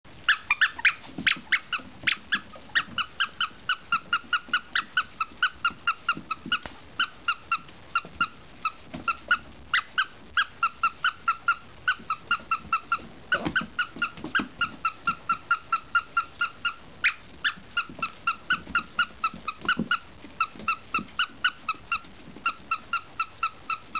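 A squeaker in a sock toy squeaking over and over, three or four short squeaks a second, each at the same pitch, with a few brief pauses.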